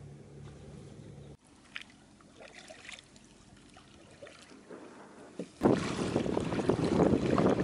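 Wind buffeting the microphone over choppy water as a small wooden boat sails under a tarp sail, starting suddenly and loudly a little over five seconds in. Before it, a faint low steady hum stops after about a second, followed by a few faint small knocks and splashes as the boat is paddled in shallow water.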